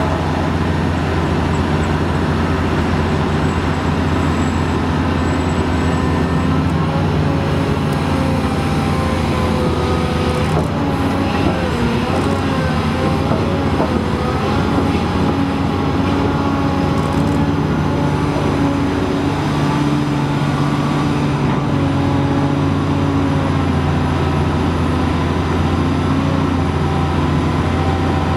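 Komatsu PC800LC hydraulic excavator's diesel engine and hydraulics running under load through a loading cycle, swinging and dumping a bucket of earth into an articulated dump truck. The note is steady and low, and wavers in pitch about halfway through, as the bucket is dumped.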